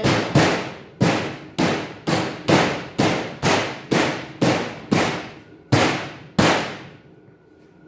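Panels of a Kobalt metal cabinet struck about thirteen times in a steady run, roughly two a second, each knock ringing briefly, to seat the top panel into its locking channel. The knocks stop about six and a half seconds in.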